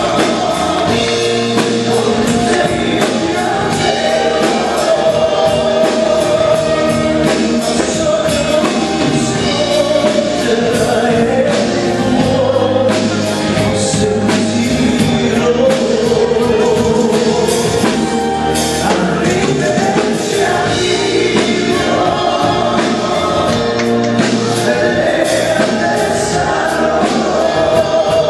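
Live band playing an Italian pop song: a man singing into a microphone over keyboard, electric bass guitar and drums, heard loud and continuous through the hall's sound system.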